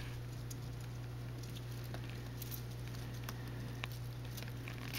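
Faint scattered light ticks and rustles of a pet rabbit stirring in her carrier, over a steady low hum.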